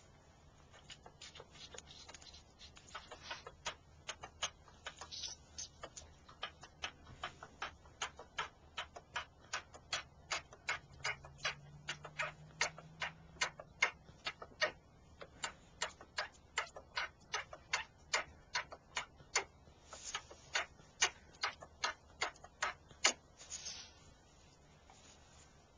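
Newborn miniature Zebu calf suckling at its mother's teat: a steady run of sharp clicks, about two a second, starting about a second in and stopping near the end.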